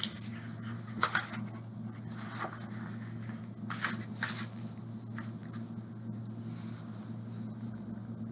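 Paper rustling and light taps from handling a picture book while its page is turned, a few short scrapes spread through, over a steady low hum.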